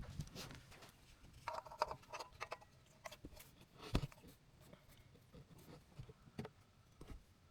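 Faint scattered clicks and light taps of small parts and tools being handled, with a cluster of slightly ringing clinks about a second and a half in and a sharper knock about four seconds in.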